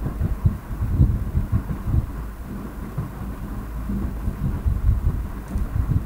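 Uneven low rumbling and soft thumps on the microphone over a faint steady low hum, with no speech.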